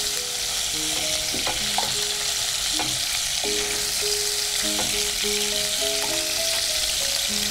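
Hot oil sizzling steadily in a non-stick pan as marinated chicken strips, fried on high heat, are scooped out with a wooden spatula. A soft melody of held notes plays underneath.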